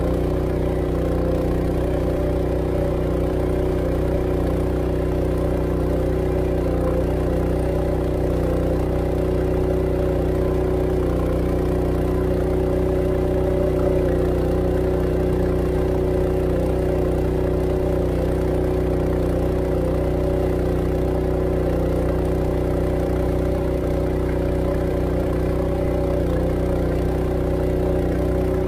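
Honda GX200 single-cylinder four-stroke engine on a ketinting long-tail drive, running steadily under load as the boat travels at speed, its pitch and loudness unchanging.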